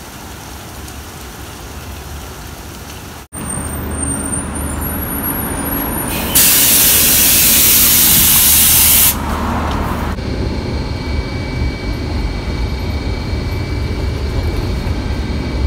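Steady rain for the first few seconds, then a cut to a city bus running, with a loud hiss of air brakes released for about three seconds in the middle.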